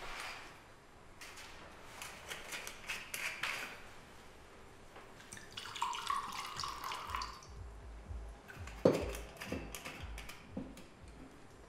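Red wine poured from a bottle into a wine glass, a steady pour of about a second and a half, after a run of small clicks and scrapes as the bottle is opened. A single sharp knock about nine seconds in, then a few softer knocks.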